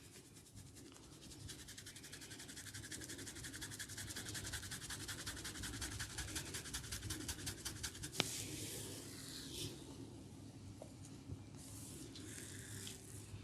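Fingers scratching and rubbing a scalp and hair in fast, even strokes, several a second, growing louder over several seconds. About two-thirds of the way through there is one sharp click, followed by slower, scattered rubbing.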